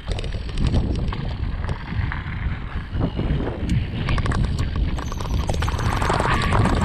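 Enduro mountain bike descending a rough trail at speed: the riding wind buffets the action camera's microphone with a low rumble, while the bike rattles and knocks over the ground without pause. The rushing noise grows louder and hissier about five seconds in.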